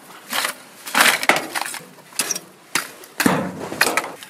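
A long metal rod scraping and rattling through scrap and litter on the ground, in a series of irregular clatters.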